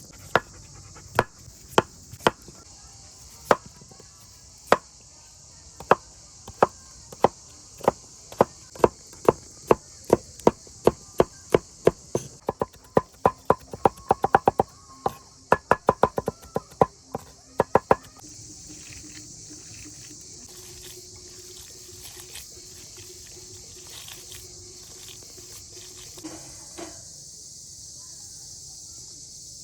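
Knife chopping on a cutting board: sharp strikes, irregular at first, then quickening to about three a second before stopping about eighteen seconds in. A steady high insect hiss runs underneath.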